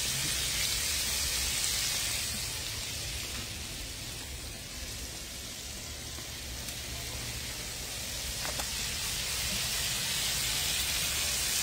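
Chicken pieces deep-frying in a pan of hot oil: a steady sizzle, a little quieter for several seconds in the middle.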